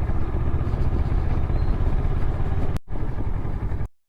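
Motorcycle riding along, its engine and road noise a steady low rumble on the rider's camera. The sound drops out briefly a little under three seconds in and stops abruptly near the end.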